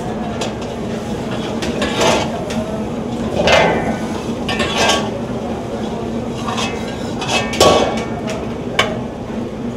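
Metal ladle scraping and clinking against a large steel kadai while stirring a thick, steaming gravy: several separate strokes, the loudest near the end. A steady kitchen hum continues underneath.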